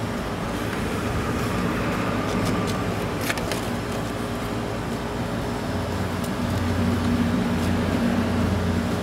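A steady mechanical hum from a running machine, swelling a little about six seconds in, with a few light clicks, mostly around three seconds in.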